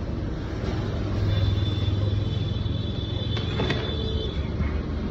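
Steady low rumble of a large gas burner heating a big pot of dal makhani, with the dal bubbling and a few faint clicks. A thin high tone sounds for about three seconds in the middle.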